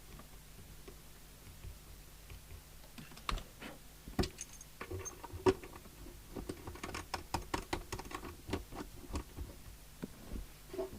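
A run of light, irregular clicks and taps. They are sparse at first and come thick and fast from about three seconds in: hands working at the CB base station's aerial socket and coaxial plug.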